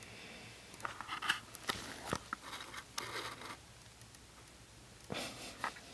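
A newborn baby hiccuping: a few faint, short hics roughly two seconds apart, among small clicks and soft rustles.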